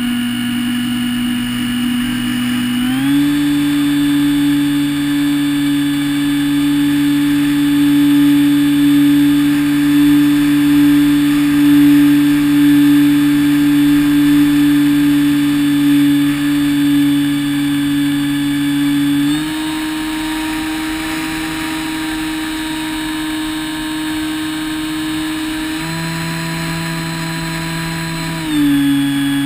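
Electric motor and pusher propeller of an EasyStar 2 RC plane in flight, heard from a camera on board: a steady whine over wind noise. Its pitch steps up about three seconds in and shifts again several times later as the throttle changes.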